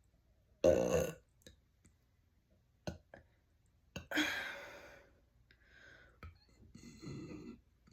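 Close-up mouth and breath sounds between burps: several sharp mouth clicks and smacks, a short breathy gasp about a second in, and a longer sigh-like exhale about four seconds in that fades away.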